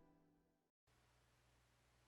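Near silence: the gap between two background music tracks, the first having faded out, with a brief total dropout about a second in.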